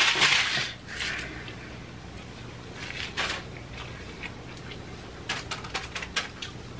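Paper taco wrappers rustling and crinkling as they are handled. The loudest rustle comes right at the start, followed by scattered soft crackles near the middle and a quick cluster of them near the end.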